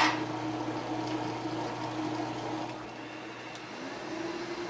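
Flatmaster drum sander switched on, its motor and sanding drum starting abruptly and then running with a steady hum and rushing noise.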